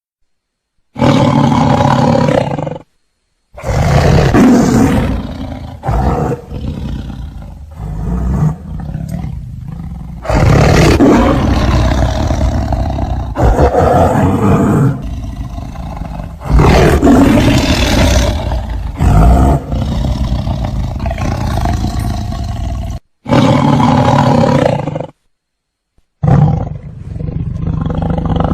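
White tiger roaring in a series of long, loud, rough roars, broken by a few sudden drops to complete silence between spliced clips.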